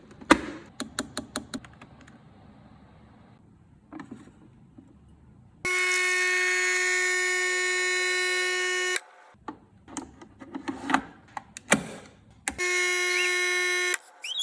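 Krups NESCAFÉ Dolce Gusto capsule machine's pump buzzing steadily while it brews, in two stretches, a long one and a shorter one near the end. Before and between them come quick plastic clicks and knocks of the machine being handled.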